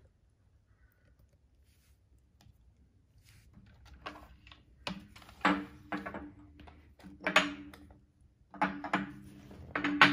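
Fossil megalodon teeth being set down and moved on a glass tabletop, clacking against the glass. There are half a dozen sharp knocks in the second half, each leaving a brief low ringing.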